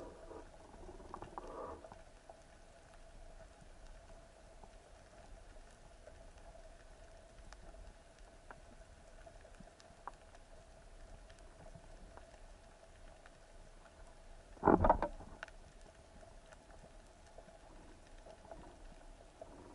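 Underwater ambience picked up through a diving camera housing: faint scattered crackling clicks over a faint steady hum. About fifteen seconds in comes one loud, short, rumbling knock.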